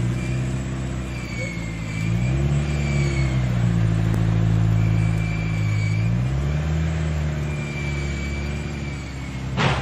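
A vehicle engine running, its speed rising and falling a few times, with one sharp knock near the end.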